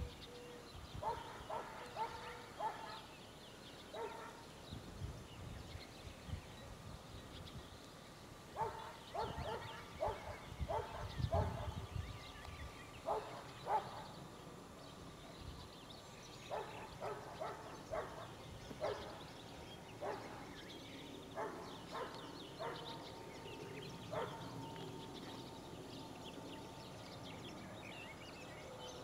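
Distant dog barking in irregular runs of short barks, several a second, with pauses between the runs.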